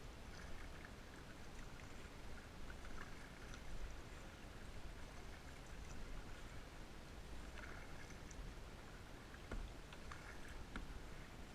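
Faint water sound around a kayak on the water, with a few light knocks.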